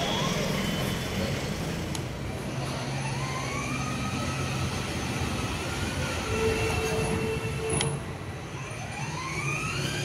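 Electric drive motor of a children's battery-powered ride-on toy car whining: it rises in pitch as the car speeds up and then holds steady, about three seconds in and again near the end, over a low steady hum.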